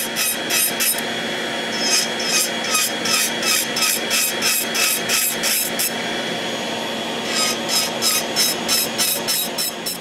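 Valentino nail dust extractor fan running steadily on its highest setting, with an electric nail file's sanding band grinding an acrylic nail over it in quick repeated strokes, about four a second, that pause for a second or two about halfway through.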